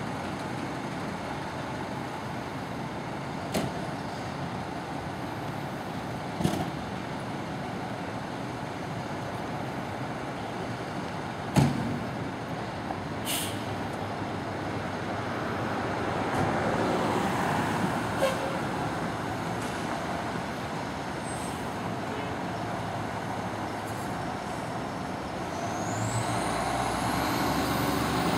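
Fire pumper's diesel engine idling amid city traffic noise, with a few sharp thumps, the loudest about a third of the way in. Near the end the truck pulls away, its engine rising and its siren starting to wind up.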